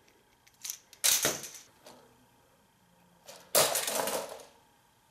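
Two sharp clattering impacts of plastic Lego Technic models on a hardwood floor, about two and a half seconds apart, each with a brief rattle of parts. The second and louder one comes as another Lego Technic vehicle tumbles in against the Grand Prix Racer.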